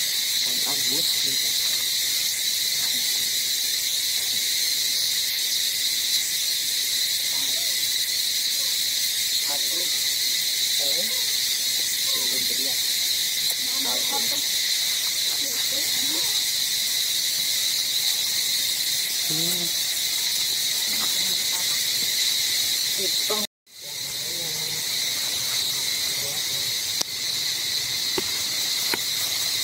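Steady, high-pitched drone of an insect chorus. It cuts out for an instant about three-quarters of the way through, then fades back in.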